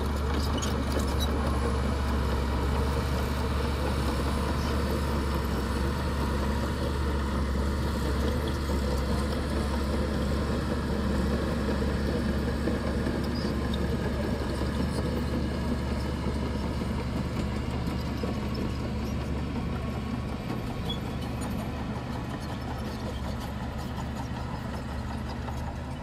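Small crawler bulldozer's diesel engine running steadily under load as it pushes a heap of wet mud, easing slightly near the end.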